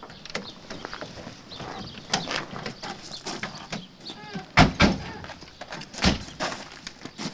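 Fiat Uno car doors being opened and shut as people get out, with several heavy thumps, the loudest about four and a half and six seconds in, among smaller clicks and rustling.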